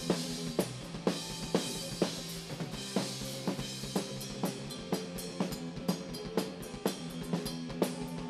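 Instrumental passage of a rock band's song: a drum kit keeps a steady beat, with strong hits about twice a second, over held bass notes and chords.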